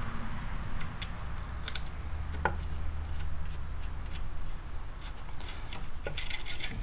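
Scattered light metallic ticks and clicks as the single takedown screw of a Lakefield Savage 64B .22 rifle is turned out of its stock, over a low steady hum.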